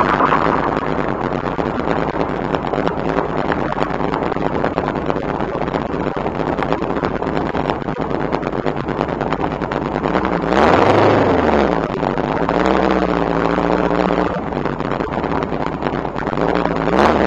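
Shelby Cobra's V8 engine running at low speed under a steady rush of noise. About ten seconds in it briefly revs up and falls back, with a shorter surge near the end.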